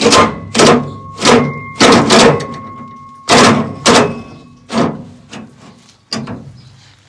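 A hammer striking steel parts of a combine header: about nine heavy blows, irregularly spaced, with a metallic ring hanging on after several of them.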